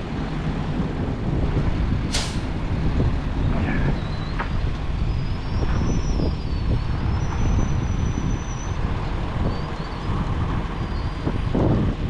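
Heavy truck diesel engine running steadily, with a short burst of hissing air about two seconds in.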